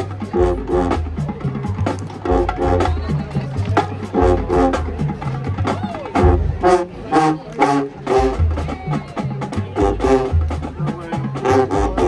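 Marching band playing on the field: short, punchy brass chords in repeated phrases over heavy bass and drumline strokes.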